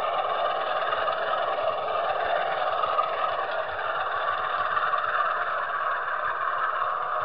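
Model train rolling along the track, heard from a camera riding on one of its wagons: a steady whirring rumble of wheels and motor with faint irregular ticking from the rail joints.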